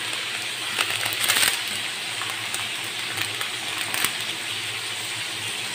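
Sardines in broth boiling hard in a frying pan with a steady sizzle, and a brief rustle and patter of seasoning granules shaken from a sachet into the pan about a second in.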